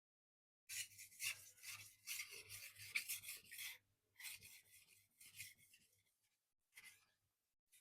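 Steel knife blade stroked on a wet 2,500 grit silicon carbide whetstone: a run of quick scraping strokes starting about a second in, a short pause, more strokes, then a couple of single passes near the end.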